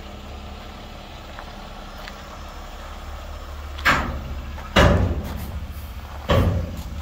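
Dump truck's engine running with a low steady rumble while it unloads a load of volcanic cinders, with three loud bangs starting a little past halfway, each a second or so apart.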